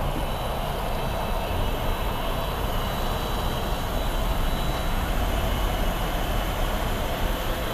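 Steady vehicle noise, a low rumble with hiss, and a faint high whine.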